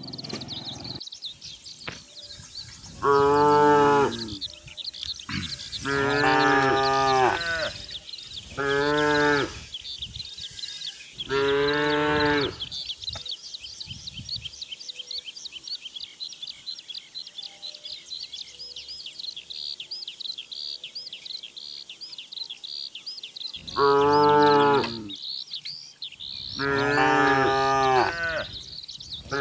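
Cows mooing: four long moos in the first half, then after a pause of about ten seconds three more near the end, over a steady high chirping in the background.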